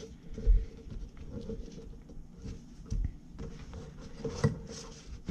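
Hands handling a roll-up pouch of steel punches and chisels: faint rustling of the pouch with a few soft knocks and taps, the sharpest about four and a half seconds in.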